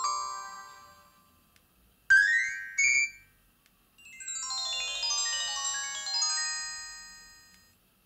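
Nokia 2660 Flip alert tones previewing through the phone's speaker as the ringtone list is scrolled. A chiming tone sequence fades out at the start, a short rising chirp and a couple of blips follow about two seconds in, and a quick flurry of chiming notes starts about four seconds in and fades out near the end.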